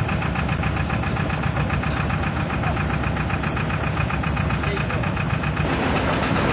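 Narrowboat diesel engine running with a steady, rhythmic knock. The beat becomes less distinct near the end.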